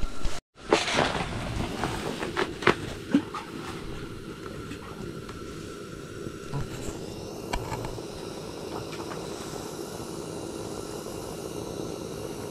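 Steady hiss of a portable propane heater inside an ice-fishing tent. A few sharp clicks and knocks come in the first few seconds.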